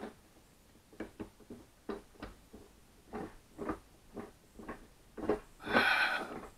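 Hand-turned wooden gear train of a homemade router lathe, the wooden teeth clunking as they mesh: a string of short, irregular knocks about two a second, with one louder, longer sound about six seconds in.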